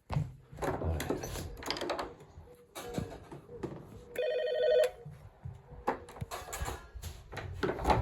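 A doorbell-style electronic ring, one short trilling ring lasting under a second, about four seconds in. It is set off as a prank. Scuffing and knocking sounds come before and after it.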